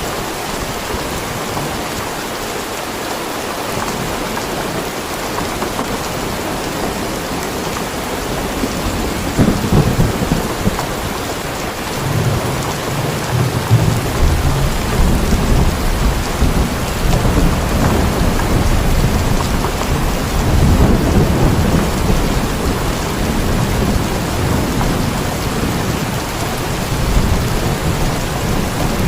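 Steady heavy rain with rolling thunder: the low rumble builds about twelve seconds in and swells again a little past the twenty-second mark.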